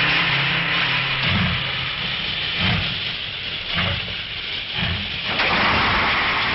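Steam locomotive hissing loudly as it lets off steam, with a few irregular low puffs underneath.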